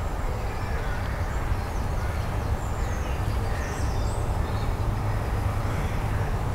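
Wind buffeting the microphone as a steady low rumble, with birds chirping faintly in the trees.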